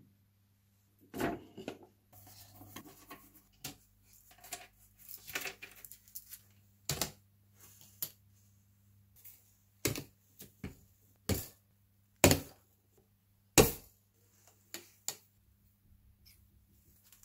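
Gretsch snare drum hardware being handled during disassembly: a string of separate sharp clicks and knocks of metal parts, the loudest about twelve and thirteen and a half seconds in.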